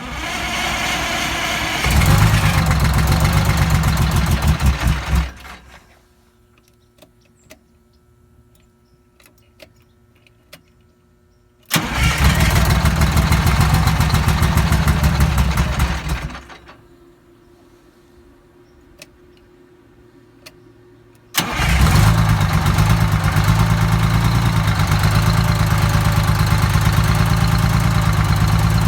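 Detroit Diesel 6V92 two-stroke V6 diesel engine starting. It runs for a few seconds and then winds down, twice. On the third start, about twenty seconds in, it keeps running steadily.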